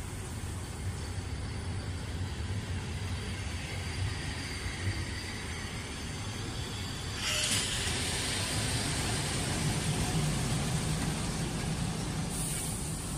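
Train of old passenger and freight wagons rolling past on the rails, a steady rumble of wheels and running gear that grows louder and hissier about seven seconds in.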